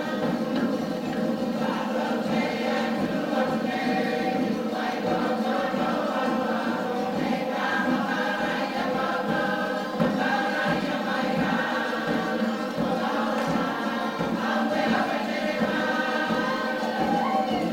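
A Cook Islands group singing in chorus, many voices holding steady overlapping notes without a break.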